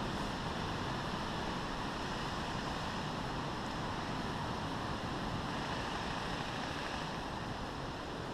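Steady, even hiss of wind on the camera microphone, with no distinct events.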